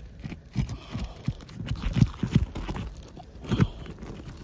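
A pry tool knocking and tapping irregularly as it is worked under asphalt roof shingles to break their seal, in uneven clusters of dull knocks.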